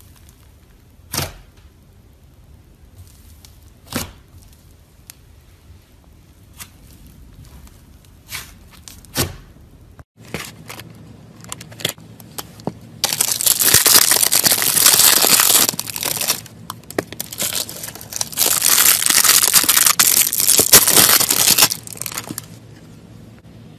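Fingers poking a soft fluffy slime, with a few sharp pops of trapped air. Then a stiff white slime slab is torn apart and pressed by hand, giving a loud crackling, tearing noise in two long stretches.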